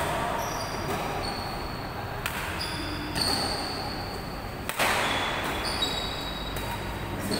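Badminton rally: several racket strikes on the shuttlecock, spaced a second or two apart, with sneakers squeaking on the court floor between shots.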